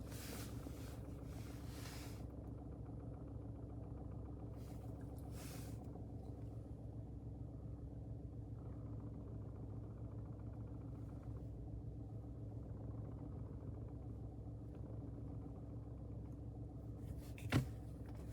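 Ford Focus Mk4's 1.0 EcoBoost three-cylinder engine idling with a steady low rumble and rattle, which the owner ties to the dual-mass flywheel. A sharp click comes near the end.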